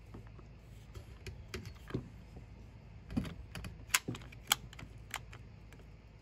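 One-handed plastic bar clamp being ratcheted tight by its trigger: a run of irregular sharp clicks, the two loudest about half a second apart a little past the middle.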